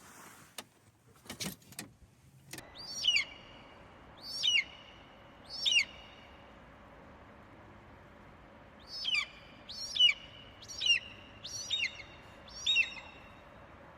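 A bird calling: three short, sharp downward-sliding calls, a pause of about three seconds, then five more in quicker succession. A few faint clicks in the first two seconds.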